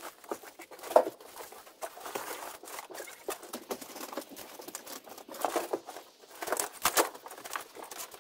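Demolition debris being pulled loose and handled: scattered knocks, crunching and tearing of wood panelling and building material. There is a sharp knock about a second in and a cluster of clattering knocks near the end.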